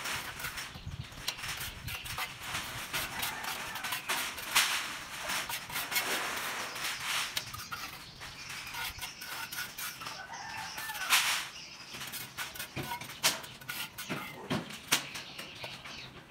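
Chickens clucking, with irregular short knocks and scraping sounds throughout.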